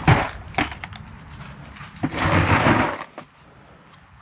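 Metal parts clanking: a sharp clank right at the start, another about half a second later, then a longer rattling clatter about two seconds in, as heavy steel engine parts are handled.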